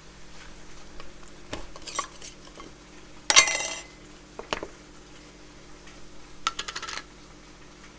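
Metal screw lid twisted off a glass mason jar and set down on a stone counter: a few light clicks, one loud scraping clatter a little past three seconds in, a knock, then a quick rattle of small clinks near the end.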